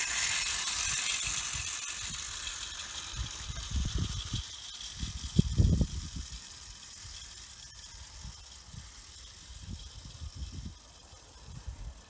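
Hornby M Series clockwork tinplate locomotive running on garden track: its wound-up spring motor whirring and its wheels rattling on the rails, loudest at first and fading as the train runs away.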